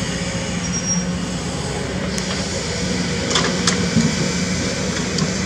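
Kobelco SK200 hydraulic excavator's diesel engine running steadily under digging load as the bucket scoops soil, with a few short clicks about halfway through.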